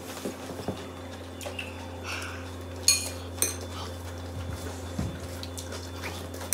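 Ceramic bowl clinking as food is mixed in it by hand: two sharp ringing clinks about three seconds in, half a second apart, among softer clicks and knocks.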